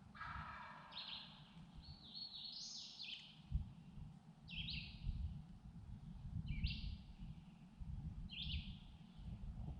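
A songbird singing short, repeated phrases about every second and a half, over a steady low rumbling noise.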